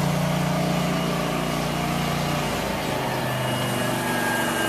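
An engine running steadily, with a hum that shifts slightly in pitch about halfway through.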